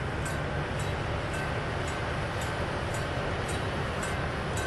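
Lift-bridge warning bells ringing steadily, about two strokes a second, with a clang like a diesel locomotive's bell. Under them runs a low steady rumble from the passing towboat's diesel engines.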